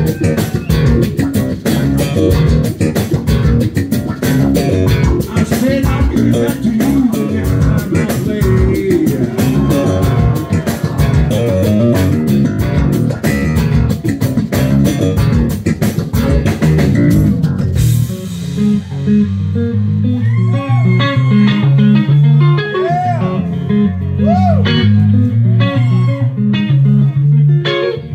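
Live blues-rock band playing loud, led by electric guitar. About two-thirds of the way in the drums drop out, leaving the electric guitar playing bent notes over the bass.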